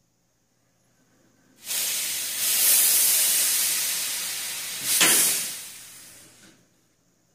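Steam hissing out of a vertical autoclave as its lid's T-handle clamp is unscrewed. The hiss starts suddenly about a second and a half in, eases off, surges again around five seconds, then fades out about a second later.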